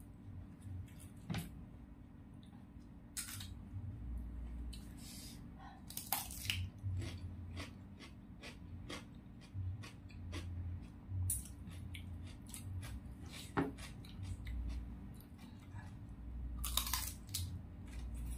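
A person chewing and crunching raw cucumber, with irregular sharp crunches between softer chewing.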